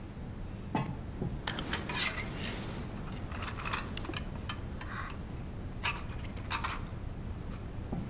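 Scattered light clinks, taps and short scrapes of metal cups and small tins handled on a table.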